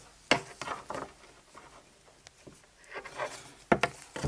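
Handling noise from a heart-rate monitor's chest strap being turned over and pulled in the hands: a few short clicks and taps with soft rubbing in between.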